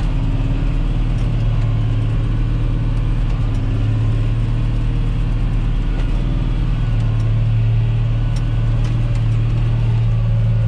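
John Deere 8100 tractor's six-cylinder diesel engine humming steadily under load while pulling a disc cultivator, heard through the closed cab. It grows a little louder in the last few seconds.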